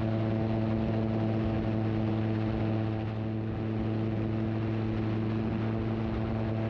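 Edra Super Petrel 100's 100 hp Rotax 912 engine and pusher propeller running steadily at climb power, a little under full throttle, just after takeoff, heard from the cockpit. The drone dips slightly about three seconds in.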